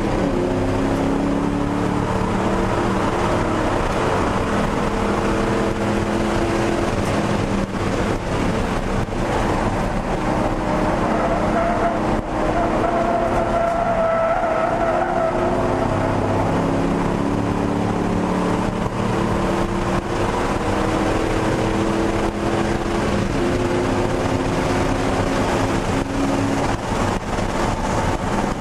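1999 Ford Mustang GT's 4.6-litre V8, heard from inside the cabin at racing pace, its revs holding and stepping up and down through gear changes. A higher squealing tone about halfway through, while cornering, is the tyres at their grip limit.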